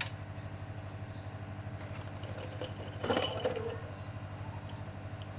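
A steady mechanical hum with a fast, even pulse runs throughout, and about three seconds in a short clatter stands out above it.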